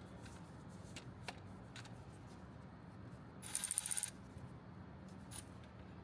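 Scattered light metallic clicks of hand tools and hose clamps, with a short burst of rapid ratchet clicking about three and a half seconds in as a clamp is started.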